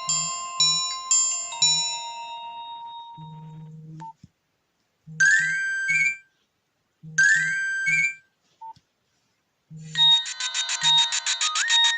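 Nokia 1280 ringtones playing one after another. A chiming melody dies away over the first few seconds, and two short ringtone bursts with a rising chirp follow. Near the end a new ringtone of fast pulsing notes starts.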